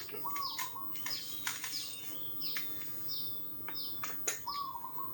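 Birds chirping over and over, each call a quick downward-sliding note, with a longer whistled note near the start and again near the end. A few sharp clicks sound in between.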